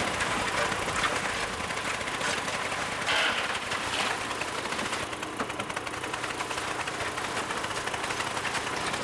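Small engine of a portable drum concrete mixer running steadily, while the tipped drum pours loose sand and gravel into a steel wheelbarrow. The mix is still coming out separated rather than blended into concrete.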